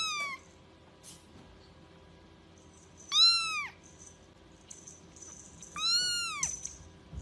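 Young kitten meowing in high, thin calls that rise and then fall in pitch. One meow ends just as the sound begins, then two more follow about three seconds apart.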